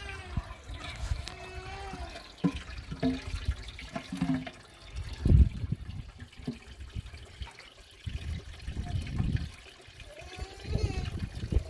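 Water running from a tank tap into a metal pot, with a knock about halfway through. A goat bleats near the end.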